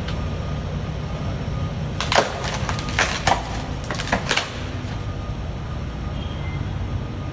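A car tyre rolling over a block of white polystyrene packaging foam, which cracks and snaps apart in a series of sharp crunches between about two and four and a half seconds in. A steady low rumble from the car runs underneath.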